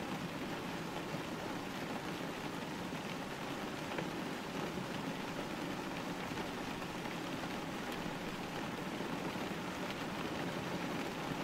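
Steady rain hitting a window pane: an even hiss of drops on the glass, with an occasional sharper tick.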